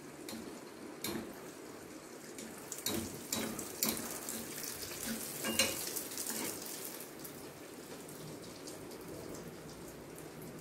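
Adhirasam, a jaggery-and-rice-flour sweet, deep-frying in a small kadai of oil, with a steady sizzle. A few sharp clicks fall in the first half, as a perforated ladle works in the oil and spoons it over the disc.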